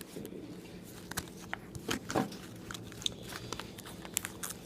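Trading cards and cardboard being handled and sorted by hand: scattered soft clicks, taps and rustles, over a faint steady low hum.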